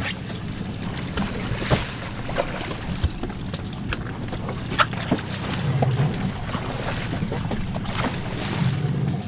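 Small fishing boat at sea: a steady low hum under wind on the microphone and moving water, with scattered sharp knocks and clicks from gear against the hull. A fish splashes at the side of the boat near the end.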